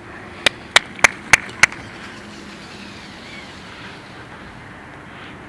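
Five sharp clicks in quick succession, about three a second, then only faint outdoor background.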